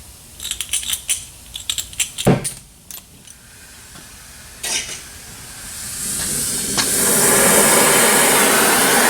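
Metal tools clinking and clanking, with one louder clank about two seconds in. About six seconds in, a loud, steady hissing roar from a shop tool builds up and keeps going.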